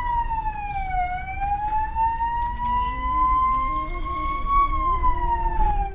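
Emergency vehicle siren wailing in slow rises and falls of pitch, heard from inside a moving van over low engine and road rumble.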